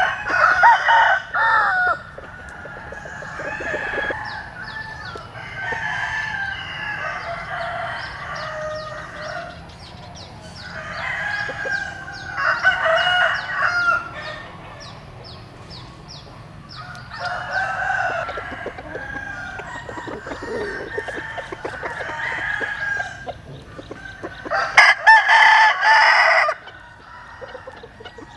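Gamecock roosters crowing again and again, about five long crows in a row, with the loudest near the end.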